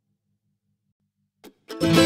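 Near silence, then background music of plucked strings starts suddenly about a second and a half in, loud, with clear picked notes.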